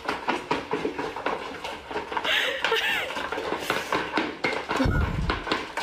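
Small dogs eating dry kibble from plastic bowls on a tiled floor: a rapid, irregular run of clicks and clatters from kibble and bowls on the tiles, with some high squeaky sounds about halfway through and a low thump near the end.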